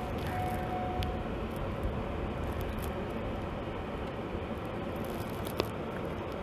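Steady low rumble of a police cruiser heard from inside the cabin as it rolls slowly into a garage bay, with a steady high tone that stops about a second in and a sharp click near the end.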